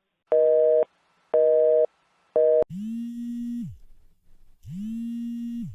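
Telephone line tones: three short beeps of a busy/hang-up signal as a call ends, then two longer, lower tones about a second and a half apart.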